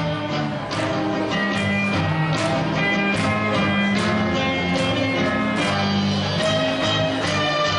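Instrumental backing music with guitar, sustained melody notes and a steady beat.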